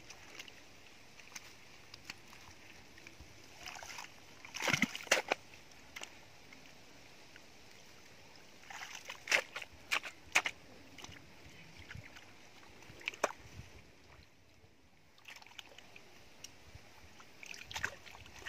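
Long-handled narrow spade digging into wet, muddy soil: four bouts of sharp wet chops and squelches, a few seconds apart, with quieter pauses between.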